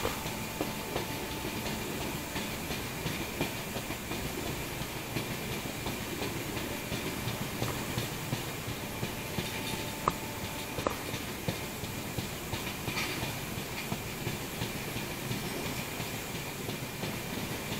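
Moving express passenger train's coach wheels running on the rails, heard from the open coach doorway: a steady rushing noise with faint, scattered clicks.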